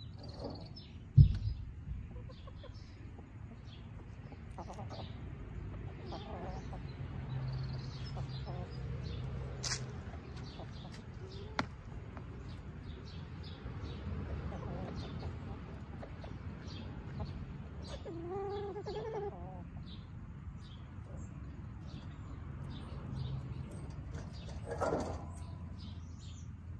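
Domestic hens clucking softly while foraging, with a longer drawn-out call a little past halfway and another near the end. A single low thump about a second in is the loudest sound.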